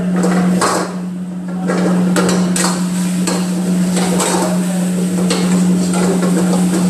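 Metal ladle knocking and scraping against a wok as vegetables are stir-fried, in repeated irregular clangs a few times a second, over a steady low hum.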